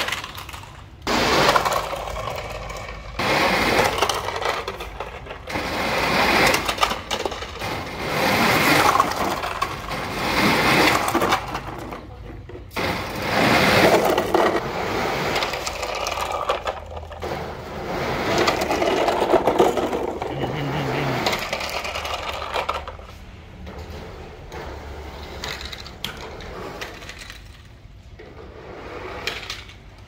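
Plastic toy trucks and diggers clattering and scraping over rough concrete and dirt, in noisy bursts a few seconds long with many sharp clicks, quieter in the last several seconds.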